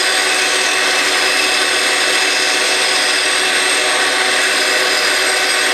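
Bandsaw running and cutting a curved wooden workpiece with its template taped on: a steady sawing noise with a thin high whine, even throughout.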